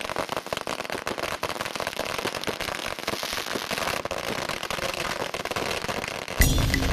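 A long string of firecrackers going off in a dense, rapid, irregular crackle. Near the end it gives way abruptly to a louder, lower, steadier sound.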